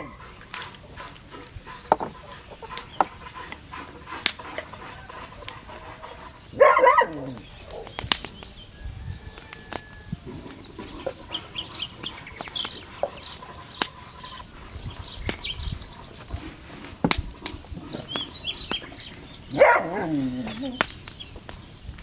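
Two loud animal calls, one about a third of the way in and one near the end that drops in pitch as it finishes, with small birds chirping in between and scattered light clicks.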